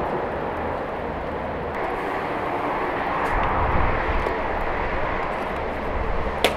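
Steady rushing roar of a wood- or charcoal-fired metal samovar's fire drawing hard while it is being stoked, with a fluctuating low rumble. A sharp click comes near the end.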